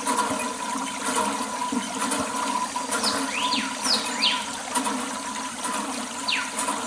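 Water running and splashing steadily, as when washing down the tractors. Short falling whistles sound now and then over it.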